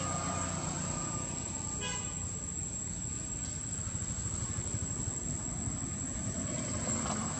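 Outdoor ambience: a steady low rumble under a constant high-pitched insect drone, with a faint short chirp near the start.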